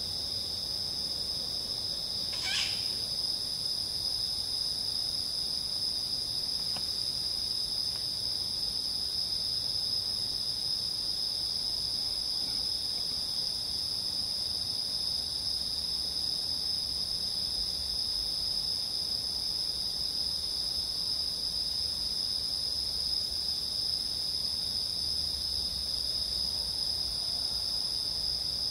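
Night insect chorus: crickets and other singing insects trilling steadily at a high pitch, with one brief high sound about two and a half seconds in.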